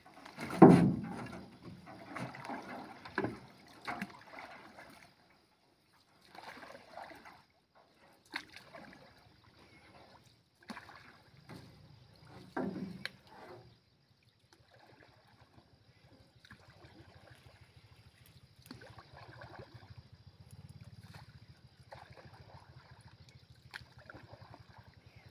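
Water splashing and sloshing with wooden knocks from a small rowing boat as a mesh fish trap is worked over its side and the boat is rowed; the loudest thud and splash come about a second in. A faint low, fast-pulsing hum runs under the second half.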